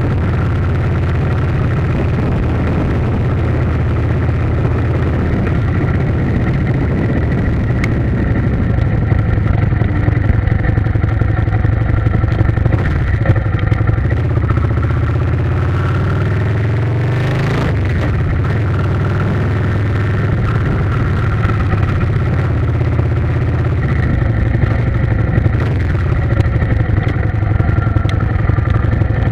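A motor vehicle's engine running steadily, its pitch sweeping briefly a little past halfway before settling again.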